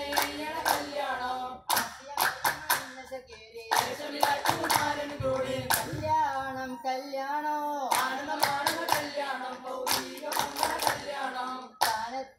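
Vattappattu, a Mappila song-and-clapping form: a group of men singing, with bursts of rapid rhythmic handclaps coming in several times over the singing.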